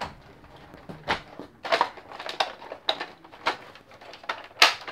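Irregular plastic clicks and knocks from a Nerf toy blaster being handled and snapped together, the sharpest click near the end.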